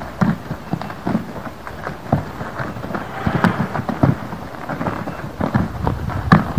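Horse's hooves thudding and scuffing in deep loose sand as it side-passes quickly, spraying sand. The hits are irregular, about two a second, with the loudest near the end.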